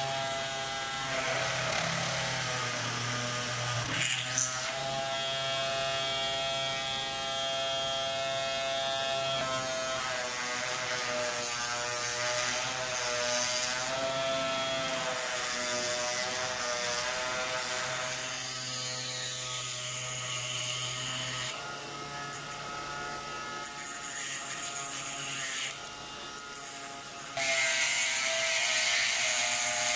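Small brushed DC motor spinning a homemade flexible-shaft rotary tool, with a steady whine that wavers as the bit is loaded drilling and sanding wood. Near the end it gets louder, with a harsh hiss as a grinding stone is run against a steel rod.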